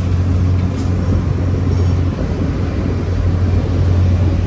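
Double-decker tour bus driving, its engine a steady low rumble under road and wind noise, heard from the upper deck.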